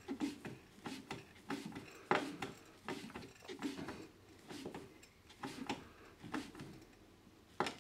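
Screwdriver tightening the screw of a metal earth clamp strapped around a copper pipe: a string of light clicks, roughly one or two a second, the sharpest about two seconds in and near the end.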